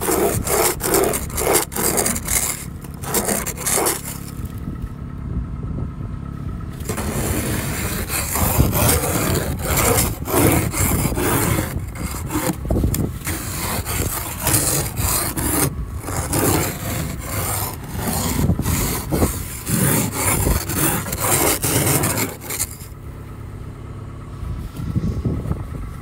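Plastic ice scraper with a toothed blade scraping snow and ice off a car's window glass in quick repeated strokes. There are short pauses about four seconds in and near the end.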